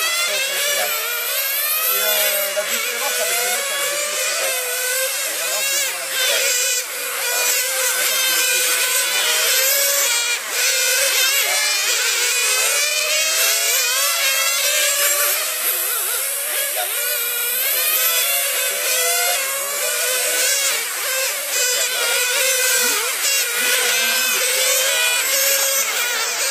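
A pack of radio-controlled model racing cars lapping together, their motors making several overlapping high-pitched whines that keep rising and falling as each car accelerates and brakes.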